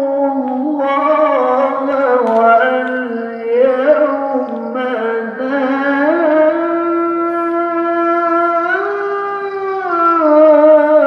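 Qur'an recitation (qiro'ah) in a melodic, ornamented voice, played over a mosque's loudspeaker system and heard from the courtyard outside. The voice slides between long held notes, with one long note held through the second half before it drops in pitch near the end.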